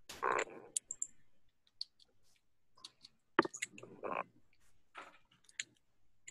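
Irregular, scattered clicks and taps of a computer keyboard and mouse, with a brief rustle near the start and another about four seconds in.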